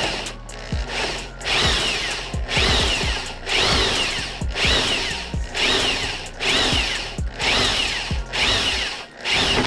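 Electric drill with a dull bit boring through a plastic motorcycle fairing. The whine rises and falls about once a second as the trigger is eased on and off, with sharp catches where the bit grabs the plastic.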